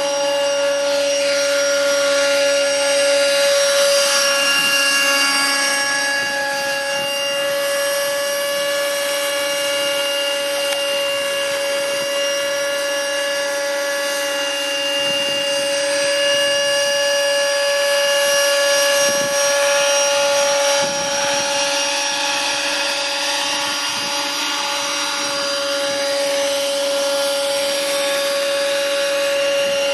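Motors of a twin-engine radio-controlled model plane running at a steady high pitch: an even, unbroken whine with overtones.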